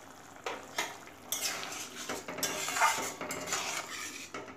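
A spatula clinks twice against a kadai, then scrapes and stirs through thick simmering rice-and-tomato gravy as sugar is mixed in.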